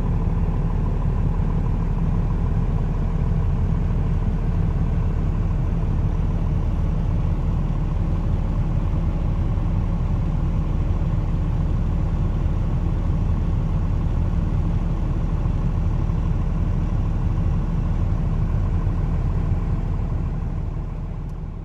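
Old Dodge diesel truck engine running steadily with a low rumble and rattle, no revving, fading out near the end.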